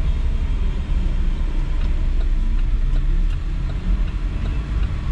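Car running at low speed in town traffic, heard from inside the cabin: a steady low engine and road rumble.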